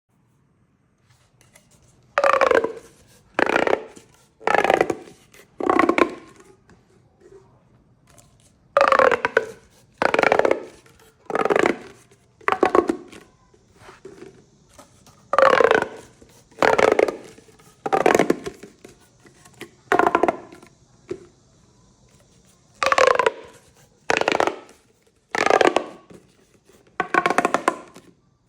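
Plastic pop tubes (corrugated fidget tubes) stretched and squashed, each pull a short, loud ratcheting pop-and-zip of the ribs snapping. They come in four groups of about four pulls, roughly one a second, with pauses between groups.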